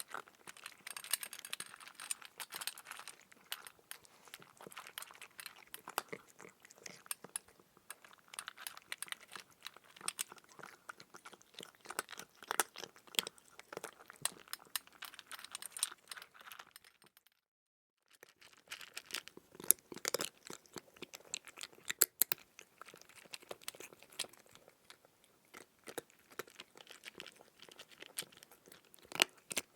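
Crunchy chewing sound effect: a dense run of crackling, crunching bites and chews. It breaks off for about a second around seventeen seconds in, then carries on.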